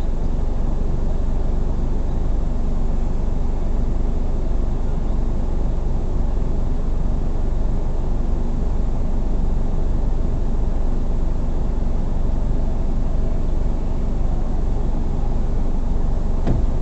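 A car driving along, with a steady low rumble of engine and road noise and a faint constant hum. A single short click comes near the end.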